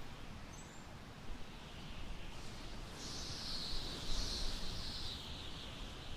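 Warm summer wind blowing through tall grass, a rustling hiss that swells louder about three seconds in and eases off near the end, over a low rumble of wind on the microphone.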